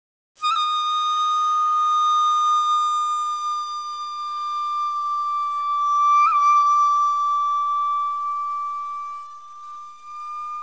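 Background music: a single long flute note, held steady for about ten seconds, with a brief flick in pitch about six seconds in.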